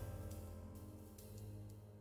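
Quiet instrumental background music with sustained notes, fading down in level.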